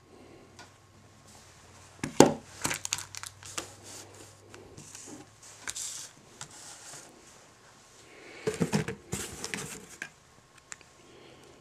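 Plastic and cardboard packaging being handled: crinkling and rustling with a run of sharp clicks and taps, and a louder cluster of rustles and knocks near the end.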